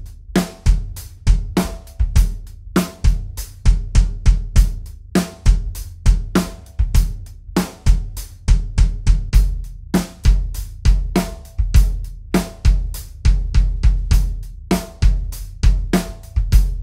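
Drum kit groove on kick drum, snare, hi-hat and cymbals, with the bass drum strong and regular. The kick's batter head is a Remo Powerstroke 3 pre-dampened head: the clear version first, with a clearer and colder attack, then the coated version, warmer with a softer attack.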